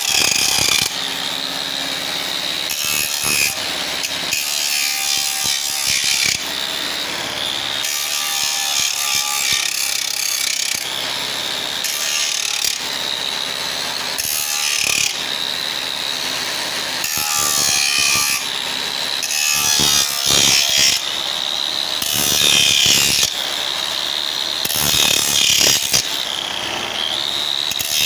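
Electric angle grinder running with an abrasive disc sanding a wood surface: a steady high motor whine with a rasping grind that swells and fades every second or two as the disc is pressed and swept across the panel.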